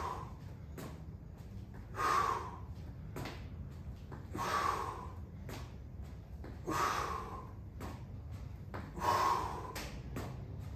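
A man's short, forceful exhalations, one with each kettlebell swing rep, about every two and a half seconds.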